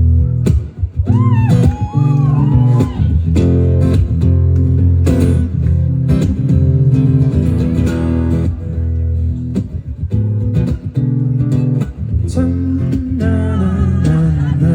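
Live band music through a concert sound system: guitar over a heavy, booming low end, with a few short sliding vocal or guitar notes about one to three seconds in.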